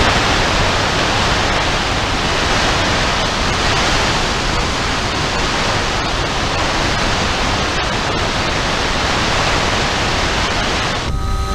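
Steady, even rushing hiss on an FPV aircraft's onboard audio, with no motor whine audible. It cuts off abruptly near the end, and the motor's steady whine returns.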